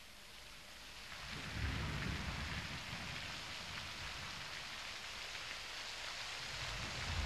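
Steady rain fading in, joined about a second and a half in by a low rumble of thunder.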